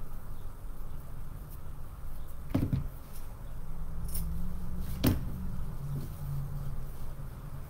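Scissors cutting wired fabric ribbon to dovetail its ends: two sharp snips about two and a half seconds apart.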